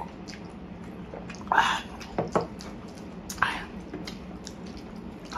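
Close-miked eating sounds from someone eating spicy instant noodles by hand: chewing and mouth noises, with a handful of short louder bursts in the middle.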